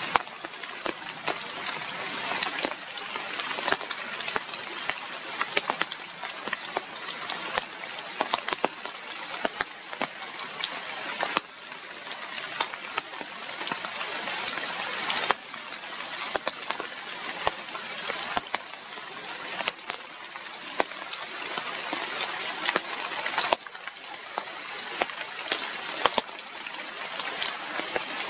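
Steady rain falling, a continuous hiss with many sharp drop hits scattered through it.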